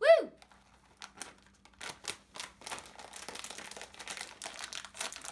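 Plastic potato chip bag crinkling and crackling in a quick, irregular run of rustles as it is pulled open and handled.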